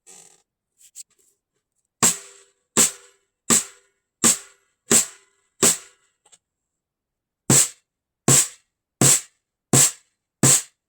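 Snare drum, close-miked top and bottom, struck with single sample hits for a sound test. Six evenly spaced hits about 0.7 s apart, a pause of about two seconds, then five more at the same pace.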